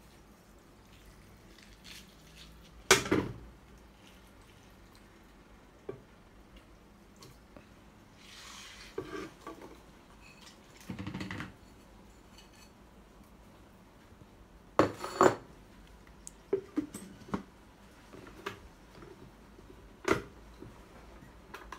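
Plastic blender jar and a plate being handled and set down on a steel counter: a handful of separate knocks and clatters with quiet between them.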